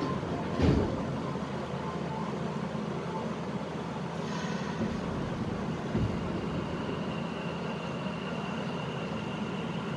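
Nagoya Municipal Subway 6000 series train running, heard from inside the car: a steady rumble of wheels and traction gear, with a thump about half a second in and another about six seconds in, and a thin steady high tone from about six seconds on.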